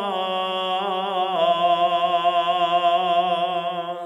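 A man's voice in melodic Arabic recitation, holding one long drawn-out note with a wavering vibrato. The note steps down in pitch about a second in and fades out at the end.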